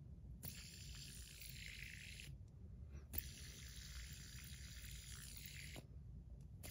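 Stainless steel fidget spinner whirring faintly on its bearing, set spinning twice. Each spin starts with a small click and is stopped abruptly after two or three seconds, and a third spin starts near the end.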